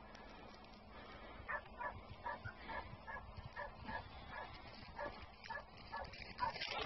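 A dog yelping and barking in a quick, faint run of short yips, about three a second, starting about a second and a half in.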